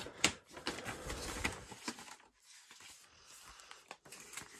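A large folded paper poster being folded back up by hand: sharp crackles and rustling of paper, loudest in the first two seconds, then fainter handling with a few more crackles near the end.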